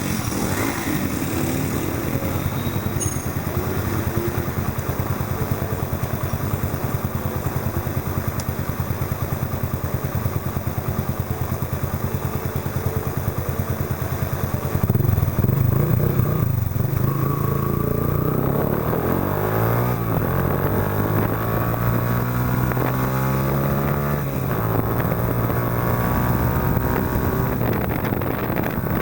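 Yamaha Factor 125's single-cylinder four-stroke engine running through a Roncar aluminium aftermarket exhaust while riding. The note holds fairly steady at first, then gets louder about halfway, and the revs climb and drop several times in the second half.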